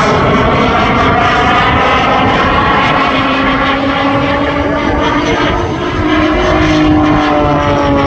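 Propeller aircraft engine running loud and steady in a display flypast, its drone bending slowly in pitch as the aircraft moves.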